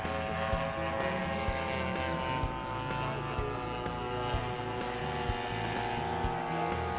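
Engine of a giant-scale radio-controlled Curtiss Pusher replica model airplane running steadily in flight, an even droning tone.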